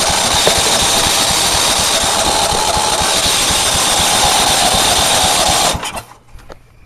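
Tecumseh lawn mower engine running, freshly started after its flooded carburettor was drained, then cutting out about six seconds in.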